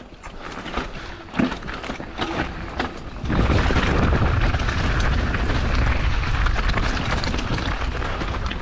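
Mountain bike descending a loose, rocky trail: tyres crunching over stones with many quick rattling knocks. From about three seconds in, loud rumbling wind buffets the microphone.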